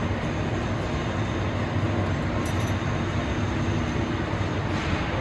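Blanchard No. 20-36 rotary surface grinder running, a steady mechanical hum and rumble.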